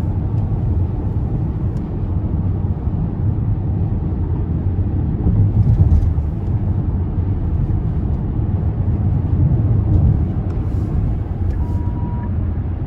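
Road noise inside a moving car's cabin: a steady low rumble of engine and tyres, with a short faint beep near the end.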